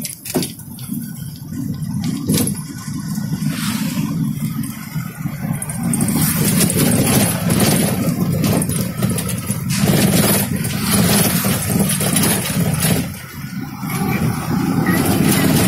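Engine of a moving vehicle running steadily, with wind and road noise, heard from aboard the vehicle.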